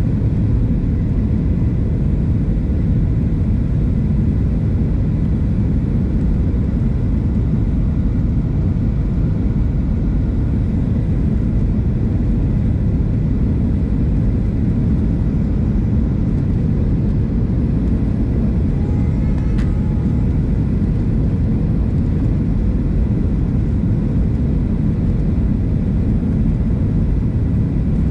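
Steady low rumble inside the cabin of a Boeing 737-700, from its CFM56 jet engines and the airflow. A brief click with a faint short tone comes about two-thirds of the way through.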